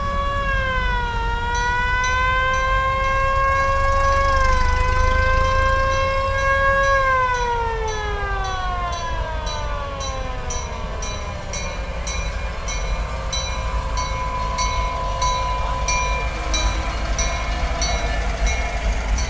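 A loud siren wail holds a steady pitch with a couple of small dips, then winds down in pitch over about three seconds. A low engine rumble runs under it, and a regular light ticking follows, about two to three ticks a second.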